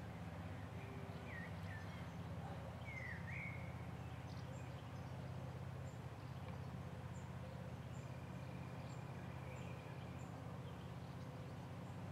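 Faint outdoor field ambience: a steady low hum with scattered small-bird calls over it. A few short chirping sweeps come in the first few seconds, then a faint high note repeats about twice a second, and a thin held whistle sounds near the end.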